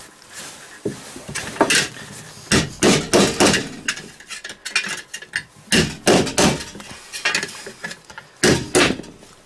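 A hammer striking a nail in a series of uneven blows, driving it into the rubber sole of a safety boot toward the steel plate inside.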